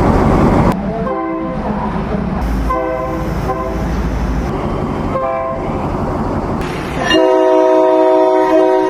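Train horn sounding over the running noise of a train: three short blasts spaced a couple of seconds apart, then one longer, louder blast near the end.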